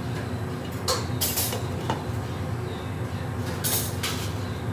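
A steady low kitchen hum over the curry pan on its gas burner, broken by a few short, sharp clatters as the spoon comes out of the aluminium pan and a glass lid is set on it, the last one near the end.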